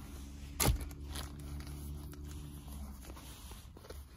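Snapback cap being handled: fabric rustling with a sharp click about half a second in and a weaker one a little later, over a low steady hum in a car cabin that fades out about three seconds in.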